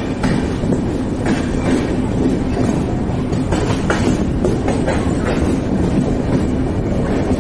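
Running noise of a passenger train coach moving along a station platform, heard from its open doorway: a steady rumble with irregular clacks of the wheels over rail joints and a faint steady hum underneath.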